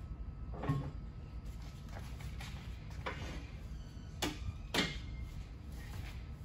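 A few sharp metal clunks and knocks from a tire-changing machine as its mount-head arm is set over a wheel clamped on the turntable. The two loudest come a little after four seconds and near five seconds in, over a low steady hum.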